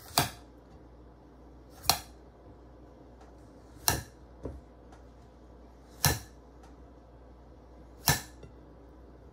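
Kitchen knife clinking against a glass plate five times, about every two seconds, as it slices through a papaya, with one fainter tap about halfway through.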